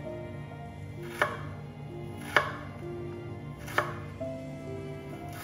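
Chef's knife slicing through fresh ginger and knocking on a bamboo cutting board: three sharp strokes a little over a second apart, a fourth at the very end. Background music plays underneath.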